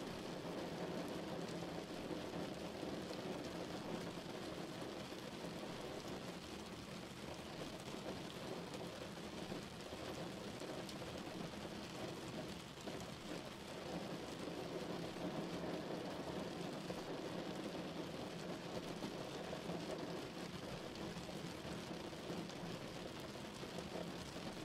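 Steady rain heard from indoors through a window pane: a constant hiss with a fine patter of drops, and a low rumble of street traffic underneath.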